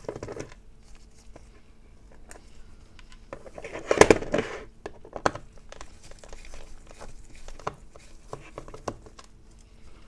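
Small plastic clicks and rustles of hands working open the plastic housing of a floating lamp's wireless charging base, with one louder clatter about four seconds in.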